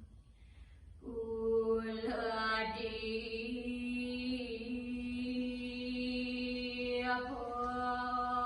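A single voice chanting a sloka, a Sanskrit verse, in long drawn-out held notes. It begins about a second in after a short pause and steps to new pitches a couple of times.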